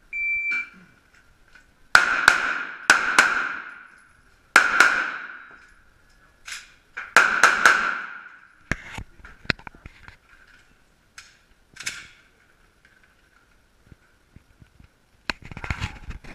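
A shot timer's short beep, then handgun shots fired mostly in quick pairs, about nine in all, each echoing in the indoor range. Fainter cracks and clicks follow, with a louder knock near the end.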